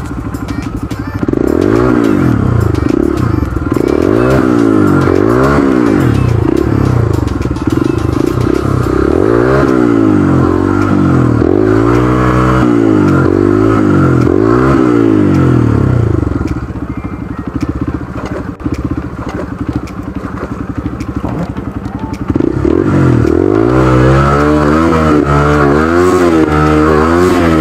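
Small single-cylinder four-stroke dirt bike engine on a trail, the throttle blipped on and off so the revs rise and fall over and over. It drops to a lower, quieter run for a few seconds past the middle, then revs up and down again near the end.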